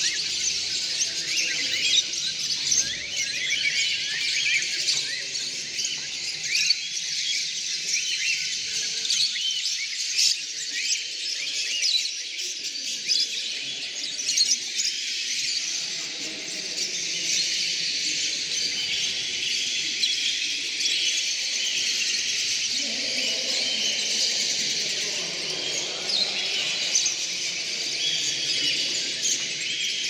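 Many caged show birds, among them cockatiels and lovebirds, chirping and calling at once in a dense, unbroken chorus of high calls.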